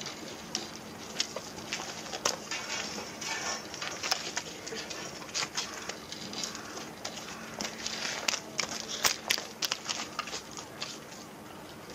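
Irregular clicks and knocks, some sharp, over a faint steady low hum.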